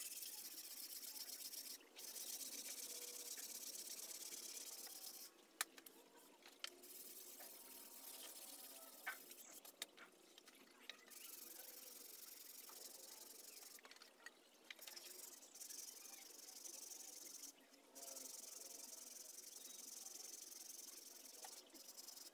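Sandpaper on a hand-held disc rubbing over a teak wooden golok sheath and handle: a steady, scratchy hiss broken by short pauses, with a few light knocks.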